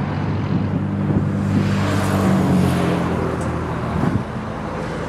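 The Montana 4940C tractor's four-cylinder diesel engine idling steadily, with a low even hum that grows louder for a few seconds in the middle.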